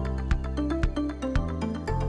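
Background music with a steady beat over held bass notes and a melody of short notes.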